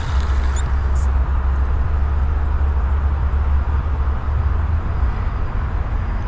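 Steady low rumble of wind buffeting the microphone, with a faint hiss over it and a light click about a second in.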